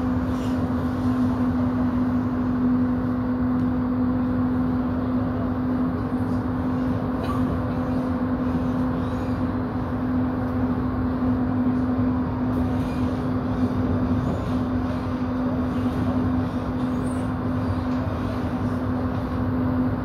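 An MTR Tung Chung line A-train (Adtranz-CAF electric multiple unit) running at a steady speed: a continuous rumble of the train on the track, with a steady low hum that holds one pitch, a sign that the train is cruising rather than speeding up or braking.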